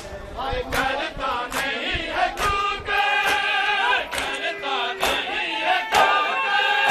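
A large crowd of men chanting in unison. Sharp, loud slaps of hands on bare chests (matam) come roughly once a second.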